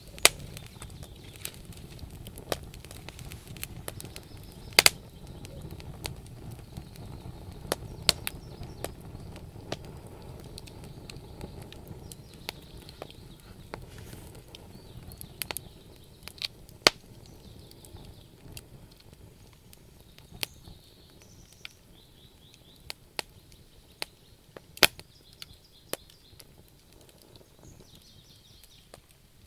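Burning firewood crackling: irregular sharp pops and snaps from the logs over a low rush of flame. The rush fades about halfway through while the pops continue.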